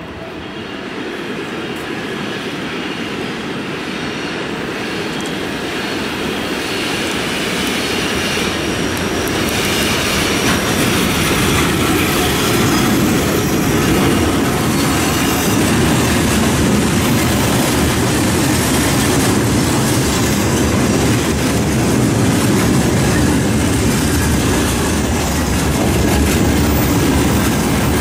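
VL11M electric locomotive approaching and passing at the head of a freight train, then its tank wagons rolling by with wheels clattering over the rail joints. The sound grows steadily louder over the first twelve seconds or so, then stays loud and even as the wagons pass.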